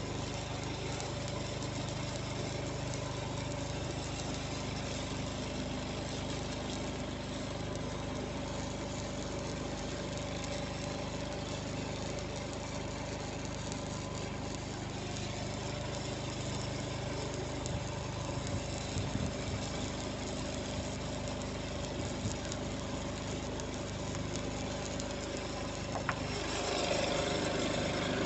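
An engine idling steadily, with a few light knocks partway through. Near the end it gets louder and its tone shifts higher.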